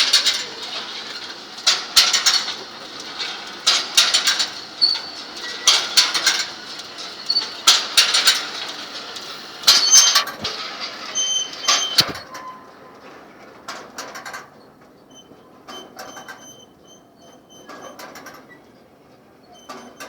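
Jean Tinguely's Heureka kinetic sculpture running, its scrap-metal parts scraping and squeaking metal on metal in loud strokes about every two seconds. After about twelve seconds it turns quieter, with faint clicks and short high squeaks.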